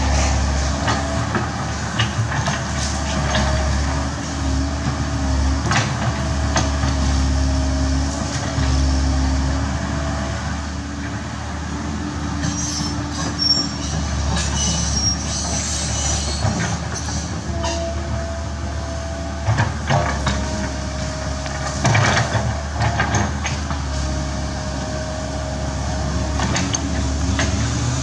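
Komatsu PC130F hydraulic excavator working: its diesel engine runs steadily under a wavering whine that rises and falls as the boom and bucket move. Several sharp knocks and clanks break in through it.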